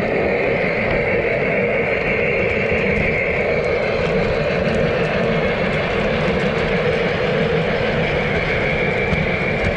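Electric model train running on the layout track, its motor and wheels making a steady hum and rumble with faint clicking.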